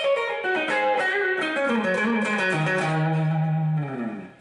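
Fender Stratocaster electric guitar playing a lead line: a quick run of single notes stepping downward, ending on a held low note that fades out near the end.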